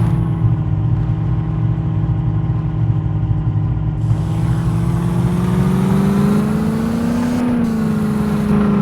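Off-road jeep engine running under load, its pitch climbing gradually for a few seconds as it revs up, then easing back slightly near the end.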